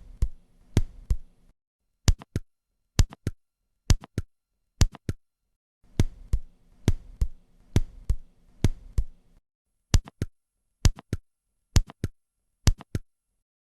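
Synthesized heart sounds: sharp clicks in repeating groups of two and three beats, played as several short runs with brief gaps between them. They compare added heart tones, the three-beat gallop rhythm and the quail rhythm heard in mitral or tricuspid stenosis.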